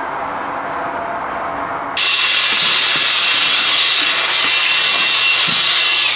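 Ryobi ONE+ cordless high-volume inflator used as a blower, its small fan motor running steadily and blasting sawdust off a workbench as a rush of air. About two seconds in it turns suddenly louder and brighter, with a steady high whine. At the very end it is switched off and winds down, the whine falling.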